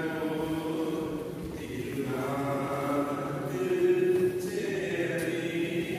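A group of voices singing a slow chant-like hymn in a church, with long held notes and a short break about two seconds in.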